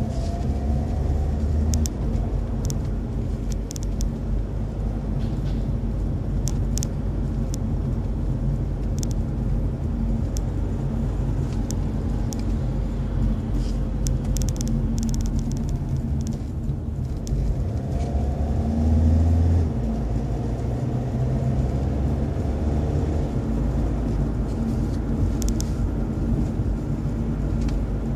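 Car interior noise while driving: a steady low engine and tyre rumble, with the engine note rising briefly as the car speeds up near the start and again about two-thirds of the way through, and faint scattered ticks.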